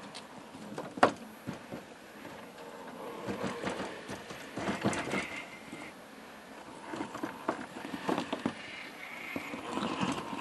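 1/10-scale Traxxas TRX-4 rock-crawler clattering over rough ground: irregular knocks and rattles from its tyres and chassis, with a sharp click about a second in. Its small electric motor whines briefly twice under throttle.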